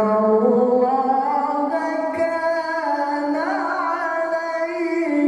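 A single voice reciting the Quran in a melodic chanting style, holding long drawn-out notes that slowly rise and fall in pitch. A wavering ornament comes a little past halfway.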